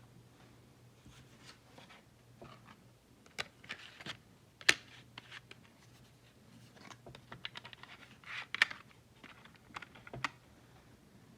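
Plastic Gotchardraw Holder toy being handled: irregular small plastic clicks and rustles, with a couple of sharper clicks about halfway and two-thirds of the way through.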